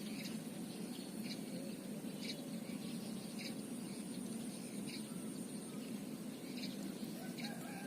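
Short high chirps of a small bird, repeating about once a second over a steady low hum.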